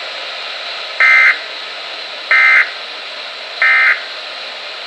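NOAA Weather Radio EAS end-of-message signal: three short, identical two-tone digital data bursts about 1.3 seconds apart, marking the end of the warning, over steady radio hiss.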